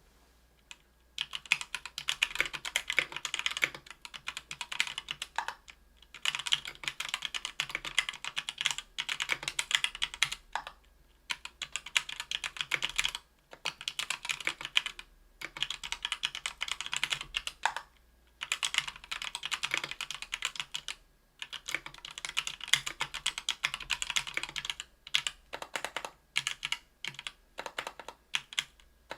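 Fast typing on a Tofu 60% aluminum mechanical keyboard with stock, unlubed Thic Thock Marshmallow 68 g linear switches, an aluminum plate and GMK keycaps. Rapid keystrokes come in runs of a few seconds, broken by short pauses.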